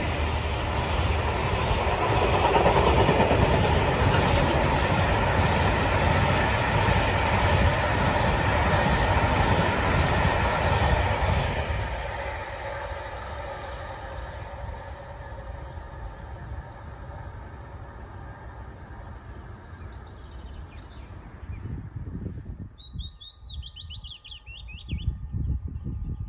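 A freight train of open box wagons loaded with stone rolls past close by, then fades away from about 12 seconds in. Birds chirp near the end.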